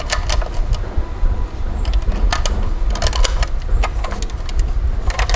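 A toy box truck being handled by hand: a rapid, irregular run of plastic clicks and rattles over a steady low rumble.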